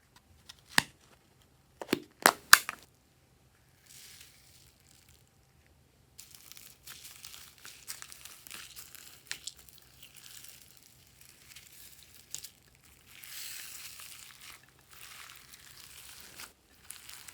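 Glossy slime being worked by hand. A few sharp pops come in the first seconds, then from about six seconds in there is steady crackling and crinkling as the slime is pressed and stretched.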